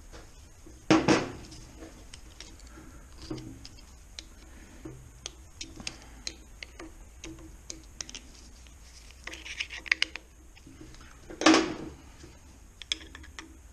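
Screwdrivers prising at a retaining clip inside a gearbox, with irregular metallic clicks, scrapes and clinks and two louder metal clanks, one about a second in and one near the end.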